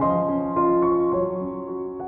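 Background piano music: a few slow, soft notes struck and left ringing, fading out toward the end.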